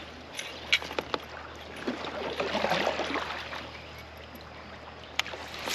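Water sloshing and trickling around a kayak, swelling briefly past the middle, with a few short, sharp clicks and knocks from gear on the boat.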